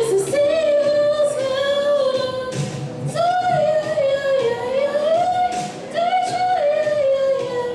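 Teenage girls singing a song live, one high melody line of long held notes that slide between pitches.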